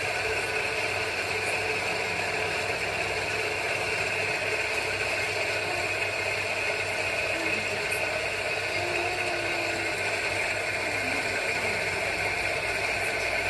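Electric bench grinder motor running steadily with a constant whir, no load changes or pauses.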